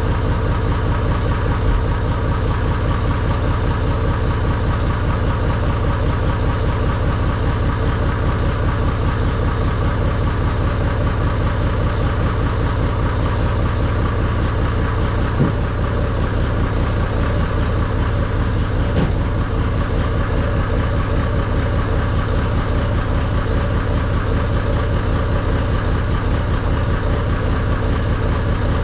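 Massey Ferguson 235 tractor engine running steadily at idle with an even firing beat, back in running order after its clutch was replaced.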